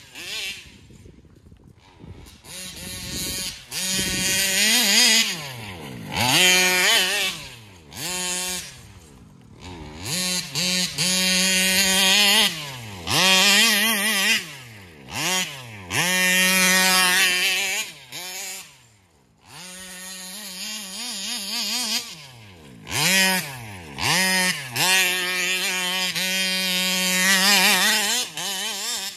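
Taylor 35cc case-reed two-stroke engine in an RC car, revving hard in repeated full-throttle bursts. Between bursts the pitch drops sharply and then climbs again.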